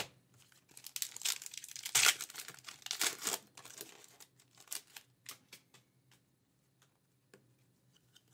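A foil trading-card pack wrapper being torn and crinkled as the cards are pulled out. The crackling runs from about a second in to past the middle, loudest around two and three seconds, then thins to a few light ticks.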